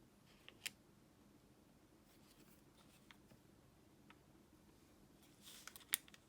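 Origami paper being handled and folded: a few faint crisp crinkles and taps, with a short rustle and a sharp crackle of the paper about six seconds in.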